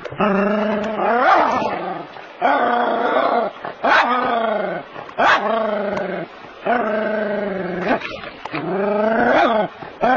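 Small terrier barking repeatedly at snakes, a steady run of drawn-out barks about every second and a half.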